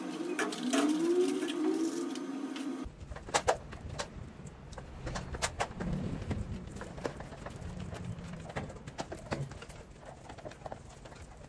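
Pigeon cooing for about the first three seconds. After that comes a string mop swishing and scraping over a tiled floor, with scattered small clicks and knocks.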